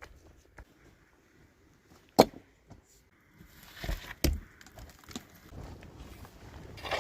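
A few separate sharp knocks, the loudest about two seconds in and another about four seconds in, followed by scraping and rustling handling sounds.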